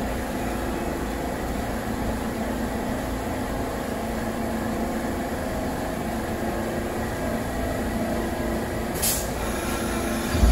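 A New York City subway train standing at a station, its equipment making a steady low hum and rumble. A short hiss of air comes about nine seconds in.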